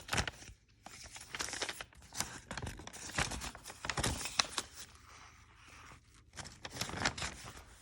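Paper pages of a handmade journal being handled and turned: irregular rustling and crinkling with small taps and clicks.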